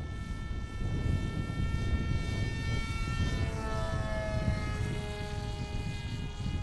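Small electric RC plane motor and propeller whining in flight, its pitch dropping about three to four seconds in as it flies past. A low rumble runs underneath.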